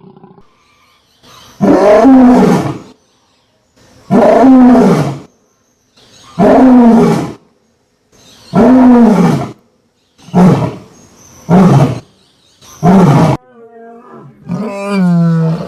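A lion roaring: four long, loud roars about two seconds apart, each sliding down in pitch, then three shorter grunting roars about a second apart. Near the end comes a steadier call with a held pitch.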